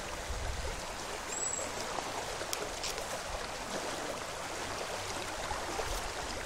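Rushing water of a small brook swollen in flood, flowing fast and steadily, with a couple of faint clicks near the middle.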